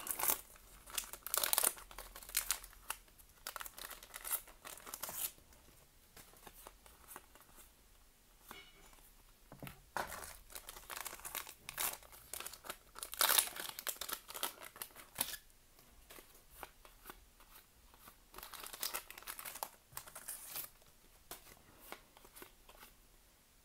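Foil booster pack wrapper of Pokémon trading cards being torn open and crinkled by hand, then cards handled. The sound comes in several bursts of crackling rustle with quieter gaps between.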